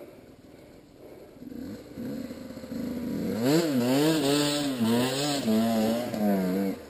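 Dirt bike engine revving, its pitch rising and falling with the throttle; it builds over the first few seconds and cuts off suddenly near the end.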